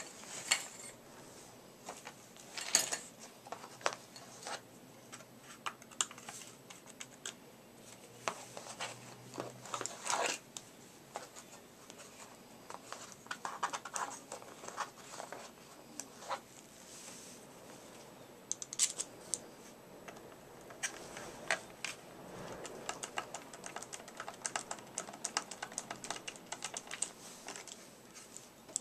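Hand tools being handled: irregular light clicks and taps of metal screwdrivers against the plastic of a Swivel Sweeper and its tool case, with a few louder knocks, and a screwdriver working at the sweeper's housing near the end.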